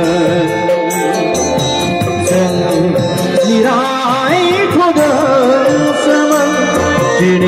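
A Bodo song playing: instrumental accompaniment over a steady percussive beat, with a wavering sung melody coming in about halfway through.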